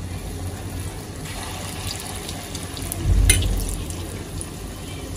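Mung and chana dal vadas deep-frying in hot oil in a kadhai: a steady sizzle. A low thump with a sharp click comes about three seconds in.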